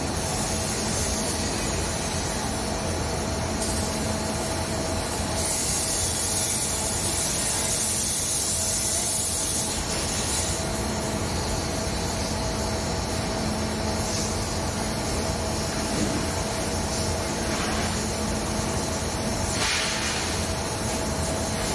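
Edge-rolling machine running steadily as it works the rim of a large sheet-steel cylinder: a continuous mechanical hum with a constant whine and hiss.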